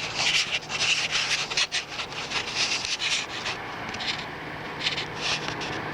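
Irregular rubbing and scraping noises in quick, uneven bursts. They are dense for the first three and a half seconds, then come only now and then. A faint steady low hum lies underneath.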